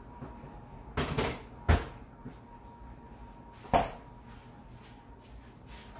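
Kitchen door or cupboard being handled and shut: a brief rustle about a second in, a sharp knock just after, and a louder thump near four seconds.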